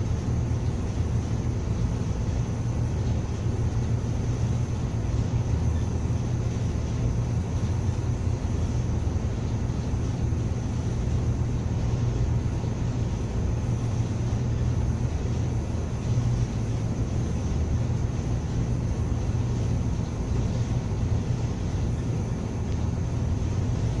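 A cargo ship underway at sea: a steady low drone from the ship's machinery under an even rushing of wind and water along the hull.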